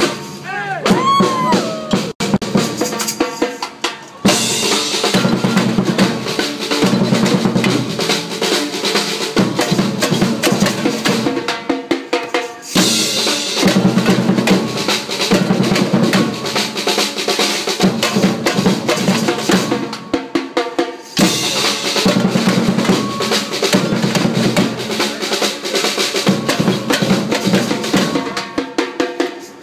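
Live drumming on a drum kit: snare, bass drum and cymbals playing a busy, fast beat. The drumming dips briefly about 4 and 20 seconds in.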